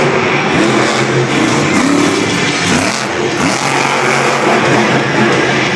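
Car engine running loudly, its pitch rising and falling a few times.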